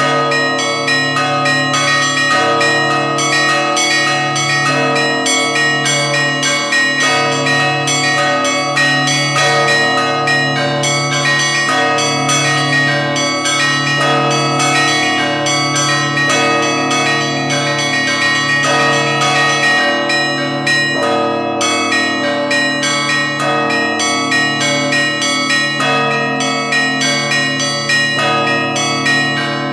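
Russian Orthodox church bells ringing together in a continuous peal. A deep bell tolls about once a second under rapid, unbroken strikes of many smaller bells.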